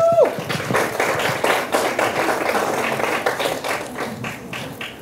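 Small audience clapping, starting with one high cheer that rises and falls. The applause gets sparser and quieter near the end.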